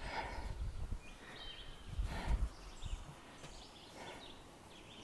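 Outdoor trail ambience with a few short bird chirps over steady background noise, and low thumps on the microphone around two seconds in.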